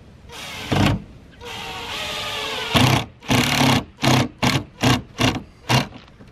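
Cordless drill driving screws through the lid into pre-drilled holes in the cedar frame. The motor whirs in a short burst, runs steadily for over a second, then gives about seven quick trigger bursts as a screw is run down and snugged tight.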